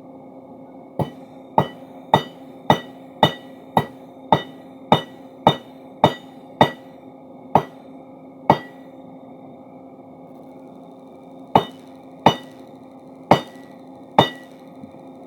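Hammer blows ringing on steel while a crowbar is forged: eleven strikes at about two a second, two slower ones, then after a pause of a few seconds four more spaced strikes, all over a steady hum.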